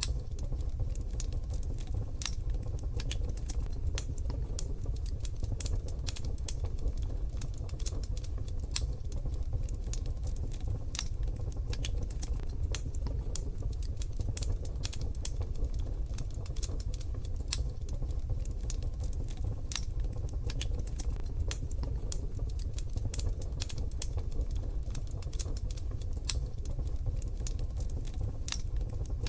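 Wood fire crackling in a wood-burning stove: dense, irregular small pops and snaps over a steady low rumble.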